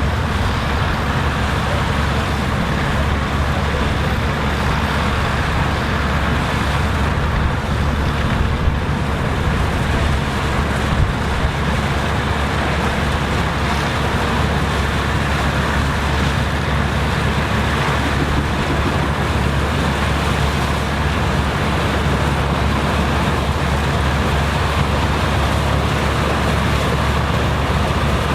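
Engine of vintage corn-harvesting machinery running steadily: a constant low drone that holds the same pitch throughout.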